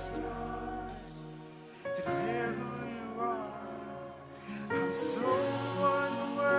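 Live Christian worship music with singing over sustained instrumental chords; a low bass note drops out and the music thins briefly before picking up again about two seconds in.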